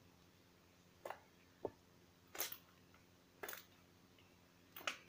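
Crunchy slime with added microbeads being handled, giving about five short crackling squishes spread through the few seconds.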